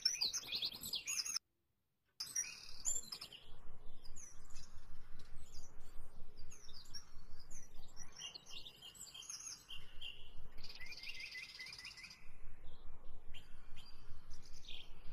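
Small birds chirping and twittering, many short high calls and trills overlapping, with a brief gap of silence about one and a half seconds in.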